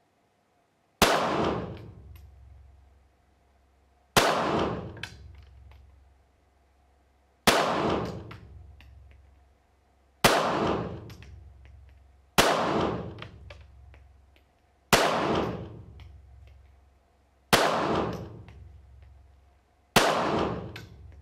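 Eight shots from a Browning Buck Mark .22 LR pistol firing Federal Gold Medal match rounds, spaced two to three seconds apart. Each is a sharp report followed by about a second of reverberation from the indoor range. The rounds are subsonic, at about 910 feet per second on the chronograph.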